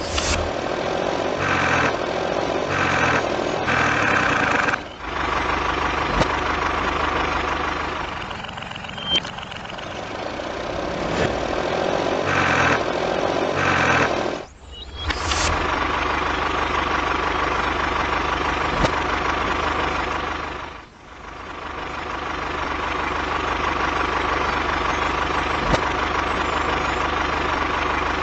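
Engine idling steadily, with short dropouts that break the sound three times.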